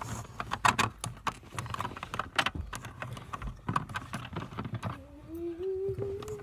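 Irregular clicking and clattering of small hard objects being handled, followed about five seconds in by a held, slightly rising tone.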